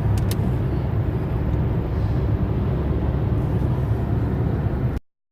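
A car driving, its engine and road noise making a steady low rumble. The sound cuts off abruptly about five seconds in.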